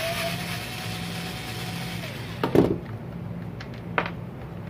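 A Ryobi cordless drill-driver running steadily as it backs a screw out of a string trimmer's engine housing, then winding down and stopping about two seconds in. A loud knock follows about half a second later, then a few light clicks.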